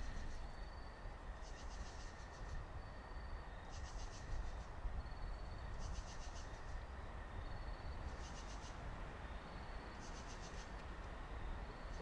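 Night insects calling in chorus: a pulsed chirp about every two seconds, a short trill in between, and a steady high buzz beneath, over a low steady rumble.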